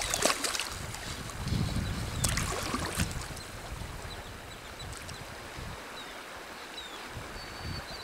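Wading boots sloshing and splashing through shallow water in two bursts in the first three seconds, then a quieter steady rush of moving water.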